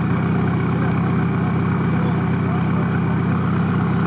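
Off-road vehicle's engine idling steadily, an even low drone with no revving.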